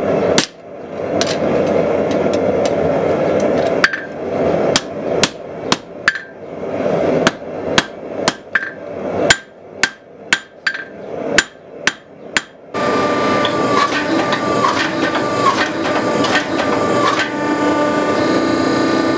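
Hand hammer striking a red-hot steel knife blade on an anvil, irregular blows about one to two a second, some with a short ring, over a steady rushing noise, as the blade is forged out. About thirteen seconds in it changes to the steady hum of a hydraulic forging press running.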